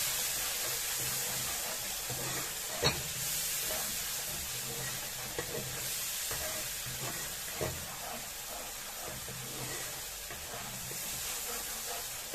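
Ground spice paste sizzling as it fries in hot oil in a wok, stirred with a metal spatula. The spatula scrapes the pan and knocks against it a few times, sharpest about three seconds in and again near eight seconds.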